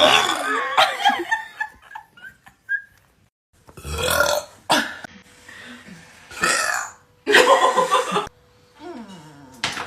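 A run of powerful, loud human burps: one ending about a second in, then three more spaced a second or two apart, and another starting right at the end.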